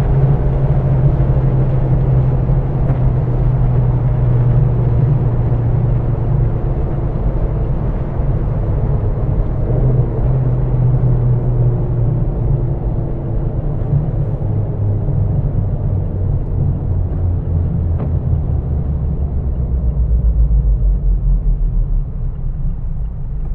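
2022 Mazda MX-5 Miata's 2.0-litre four-cylinder engine running at steady cruising revs, with tyre and wind noise. In the second half its note falls lower as the car slows.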